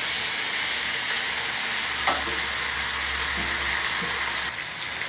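Chicken cubes, onion, bell peppers and carrot sizzling in a hot frying pan, with a single knock about two seconds in. The sizzle eases a little near the end.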